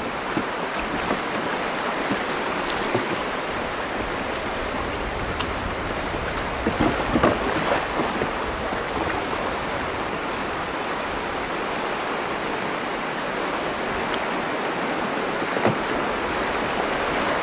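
Shallow river water rushing steadily over a rocky riffle, with a louder stretch of splashing about seven seconds in.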